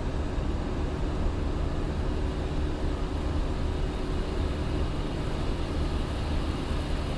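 Steady flight-deck noise of an Airbus A350-900 in the climb after takeoff: an even low rumble and hiss, with a faint steady hum.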